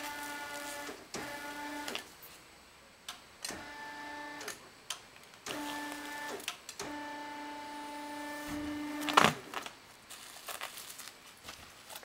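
Electric drive motors and gear reducers of a foam sheet rolling machine whining in five short runs that start and stop as the compression rollers are jogged. About nine seconds in there is a loud sharp crackle, followed by scattered light crackling of plastic stretch film being handled.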